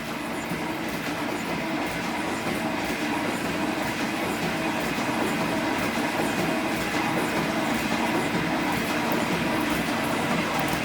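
G&E metal shaper running steadily, its ram stroking back and forth as the cutting tool takes a cut of about five thousandths across the top of an aluminum bar.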